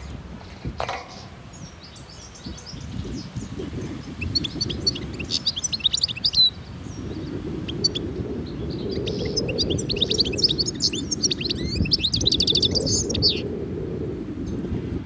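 Caged European goldfinch singing in two spells of rapid, high twittering, over a steady low background noise.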